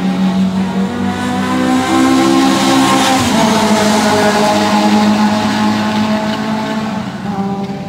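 Race car engines running at speed on a circuit. The engine note drops about three seconds in as a car goes past, then holds steady and fades a little near the end.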